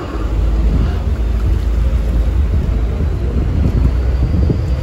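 Low, steady rumble of a moving boat, mixed with wind buffeting the phone's microphone. It gets louder just as it begins.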